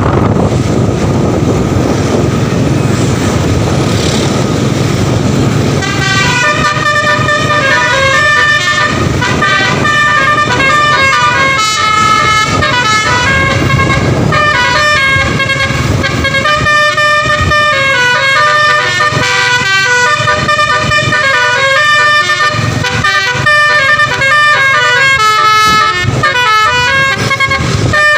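Bus engine rumbling, then, about six seconds in, a telolet horn starts: a multi-tone bus air horn playing a quick run of changing notes that goes on to the end.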